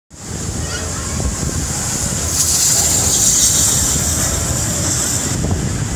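Steam locomotive approaching with its train, a steady rumble with a strong hiss over it that cuts off suddenly a little after five seconds.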